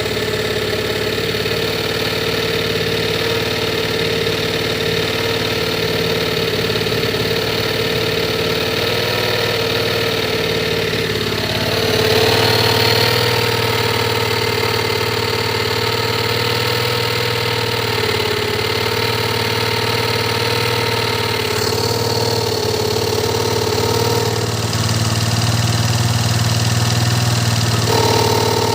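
An engine running with its CVT transmission, making the snoring, noisy sound ("ngorok") that is a sign of a fault in the CVT. The running note steps up and gets louder about twelve seconds in, and shifts again a few times later.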